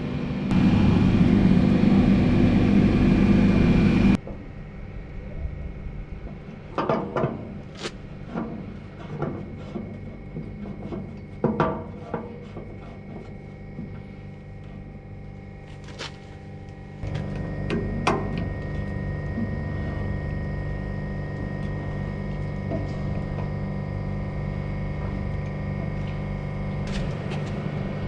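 A steady machine noise for about four seconds that cuts off suddenly, then scattered knocks and clicks, then a steady mechanical hum that comes in more than halfway through.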